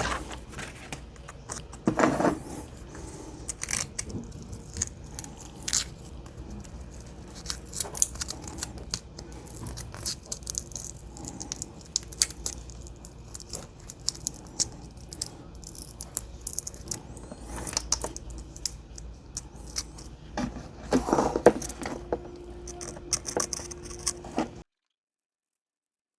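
Short scratching strokes and small clicks as a circuit board is lightly hand-sanded with 120-grit sandpaper wrapped around an eraser, working through the green solder mask over a burnt trace, with knocks from handling the board. The sound cuts off abruptly near the end.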